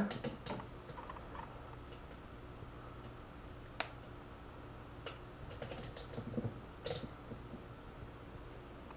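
Faint steady electrical hum with a few scattered light clicks and taps.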